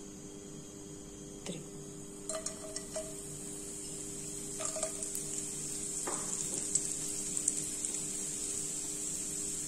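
Dried anchovies frying in hot oil in a non-stick wok: a sizzle that starts a couple of seconds in and grows louder, with a few light clicks and pops as the fish land and spit. A steady low hum runs underneath.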